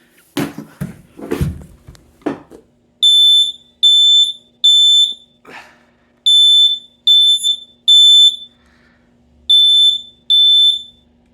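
A few knocks, then a smoke alarm sounding its high beep in the temporal-three evacuation pattern: three beeps of about half a second each, a pause, three more, a pause, and two more near the end.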